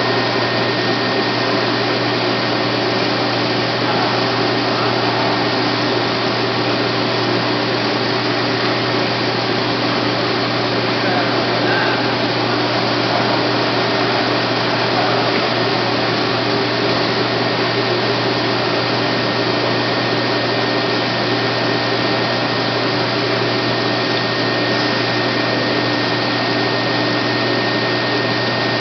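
Bench metal lathe running at a steady speed: an even mechanical hum from its motor and gears, with a thin steady whine above it.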